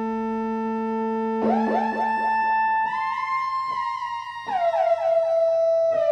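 KORG Micropreset monophonic synthesizer playing a slow lead melody. A held note gives way to a new note about a second and a half in, then others about every one and a half seconds. Each new note slides into pitch with a quick fluttering repeat.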